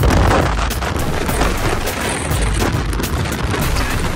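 Wind buffeting a phone microphone held at an open car window while driving: a loud, continuous low rumble broken by rapid crackling pops.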